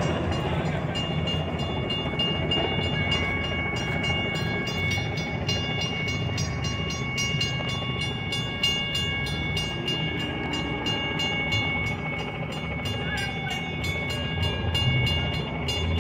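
Railroad crossing bell ringing with even, repeated strokes, starting about a second in, over the low rumble of a DART light rail train pulling away.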